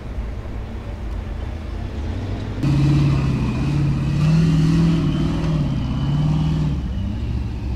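Formula Offroad buggy's engine working under load as it climbs a steep dirt slope. About two and a half seconds in it comes in much louder, revving hard with its pitch rising and falling for about four seconds, then drops back to a lower drone.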